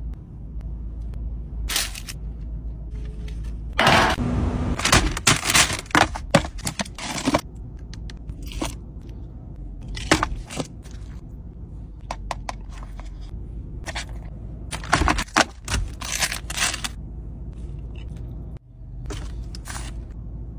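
Takeaway food being handled: plastic sauce cups, lids and wrappers crackling, clicking and scraping in irregular bursts, busiest about four to seven seconds in, over a steady low hum.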